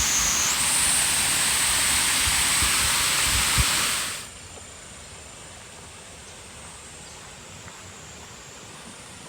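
Waterfall about 30 m wide and 4 m high, pouring over a broad rock slab, giving a steady rushing hiss. About four seconds in it drops sharply to a much quieter, distant rush.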